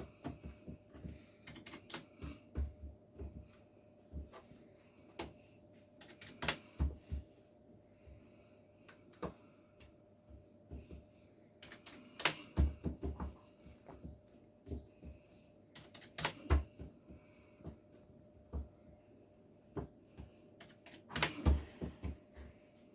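A run of irregular sharp clicks and light knocks, sometimes several in quick succession, over a faint steady hum.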